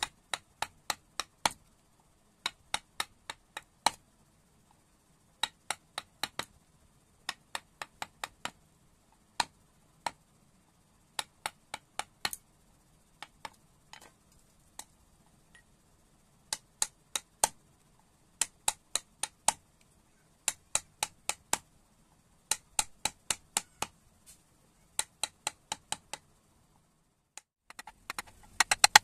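A mallet tapping a flat chisel into wood: short sharp knocks in quick runs of three to six, with brief pauses between runs. The knocks stop a little before the end as the chisel is pushed by hand.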